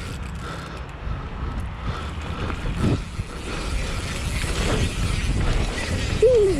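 Mountain-bike riding noise: wind on the microphone with rumble and rattle from a downhill bike's tyres and frame over rough ground, growing a little louder about halfway through. A short falling tone sounds near the end.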